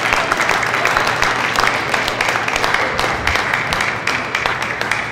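Spectators applauding at the end of a point in a table tennis match, a dense run of clapping.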